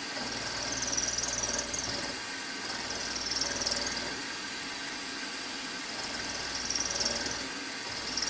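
Milling machine spindle running with an end mill taking light pecking cuts into a conrod blank, to a set depth: three cuts, each a second or two long, heard as a high-pitched cutting squeal over the steady spindle hum.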